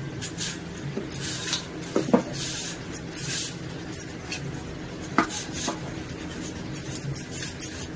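Knife and peeler scraping the green skin off raw bananas: irregular short scrapes with a few sharper clicks of the blade.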